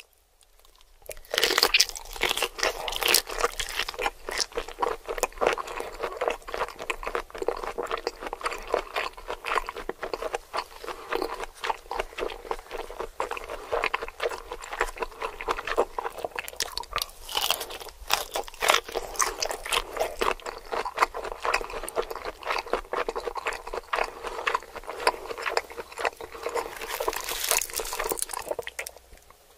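Close-miked crunching and chewing of crispy fried food, a dense run of crackly bites starting about a second in.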